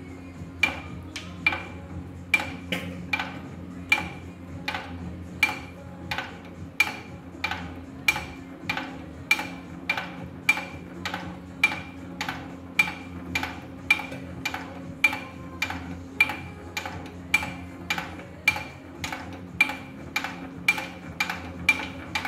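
Lister JP-series diesel's bare crankshaft and valve gear being spun over with the pistons out, flushing oil through the crank oil holes to clear debris from the bearings. A regular sharp tick about twice a second over a steady hum.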